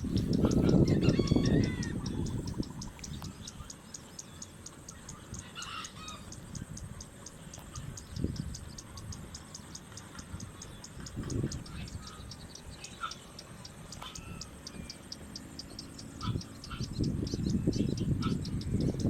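A rooster crowing about a second in, with scattered short bird chirps and a steady, rapid insect ticking throughout. A low rumble on the microphone is heard at the start and again near the end.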